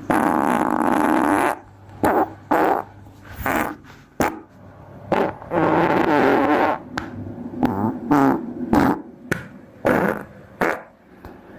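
A string of fart sounds: a long one at the start and another about five seconds in, with many short ones between and after.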